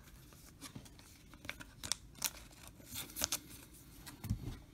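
Topps Star Wars trading cards and a clear plastic card sleeve being handled: scattered short, crisp flicks and rustles as cards are slid and sorted, a quick cluster of them about three seconds in.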